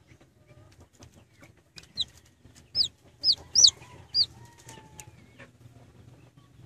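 Chicken chick peeping while hatching: five short, high peeps, each falling in pitch, between about two and four and a half seconds in.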